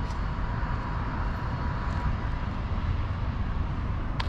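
Steady outdoor city noise: distant traffic with a low rumble, a faint steady whine running through it, and a few brief light clicks.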